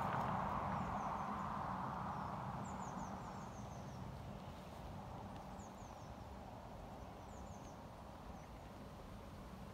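Lakeside ambience: a broad rushing noise fades away over the first few seconds, while small birds give short, high, falling chirps in a few quick runs, over a low rumble.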